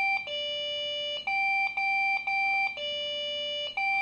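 A PC's BIOS beep code on a failed boot: three short beeps at one pitch followed by one longer, lower beep, repeating over and over. It signals that the computer has found a fault at start-up and will not boot.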